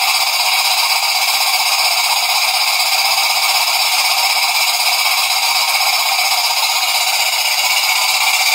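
Jensen 20G model steam engine's exhaust steam hissing steadily through a Steam Demon chuff pot, with the steam valve fully open. The hiss is loud and even, with no distinct chuffing beat.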